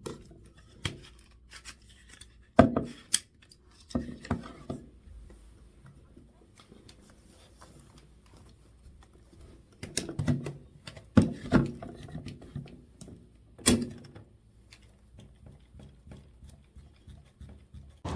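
Handling noise: scattered clicks, taps and knocks of objects being picked up and moved, in small clusters with quiet gaps between.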